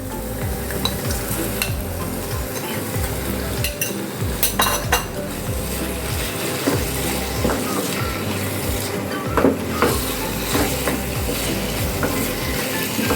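Boneless chicken pieces sizzling as they fry in a pan of hot, oil-rich spiced masala, stirred with a spatula that scrapes and knocks against the pan many times over.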